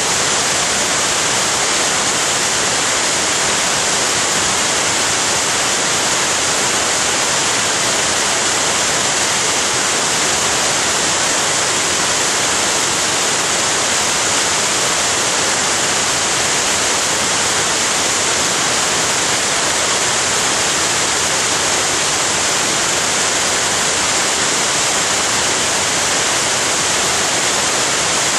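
Waterfall rushing in a loud, steady, unbroken hiss.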